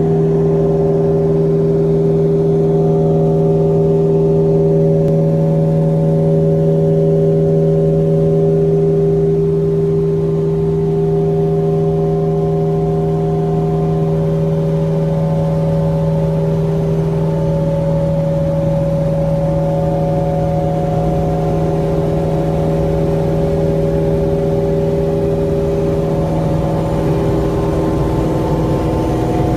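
Steady drone of a Cessna 340A's twin turbocharged Continental six-cylinder engines and propellers in level flight, heard inside the cabin: a strong low hum with several steady tones above it, some fading in and out. It eases slightly after about nine seconds.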